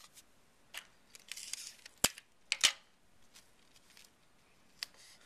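Tissue paper being smoothed by hand and taped flat on a board: a few sharp crackling snaps, loudest about two seconds in and again just after, with a brief rustle of paper between them.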